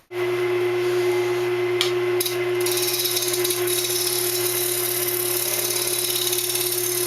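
Wood lathe running with a steady hum. From about two and a half seconds in, a skew chisel cutting the spinning hardwood blank adds a constant high scraping noise.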